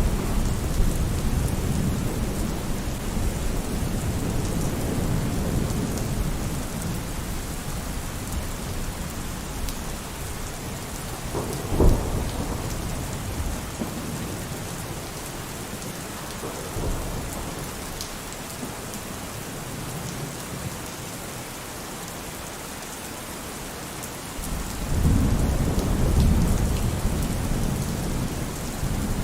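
Steady rainfall with thunder. A low rumble fades away over the first few seconds, a sharp thunderclap comes about twelve seconds in, and another rolling rumble builds up near the end.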